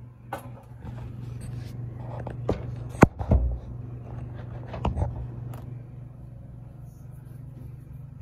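Handling noise of a phone being gripped and set up at close range: a string of knocks and rubs, the loudest about three seconds in, then the phone settles. A steady low hum runs underneath.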